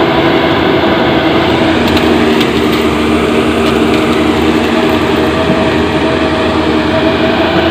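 Caterpillar 320D2 hydraulic excavator's diesel engine running steadily at a constant pitch, with a few faint clicks partway through.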